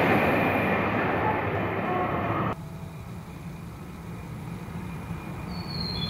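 Rushing noise of a Kyushu Shinkansen N700-series train that has just run through the station at speed, slowly fading, then cut off abruptly about two and a half seconds in. A much quieter low rumble follows and grows toward the end, with faint high tones near the end.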